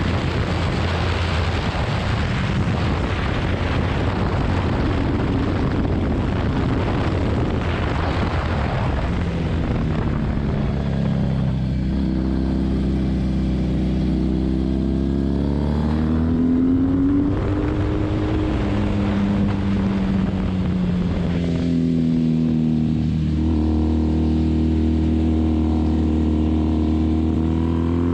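Onboard motorcycle at track speed: heavy wind rush over the microphone at first, then the engine note comes through, dropping in pitch as the bike slows for a corner and rising again as it accelerates out, then dipping and rising once more.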